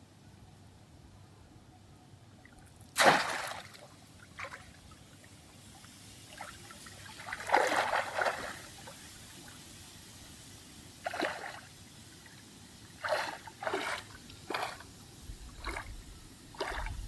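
Water splashing and sloshing in short, irregular bursts, the loudest a sharp splash about three seconds in, with a longer run of splashing around eight seconds.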